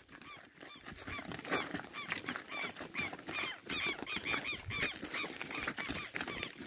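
A rapid series of short, high, chirping animal calls, about three or four a second, keeping up throughout.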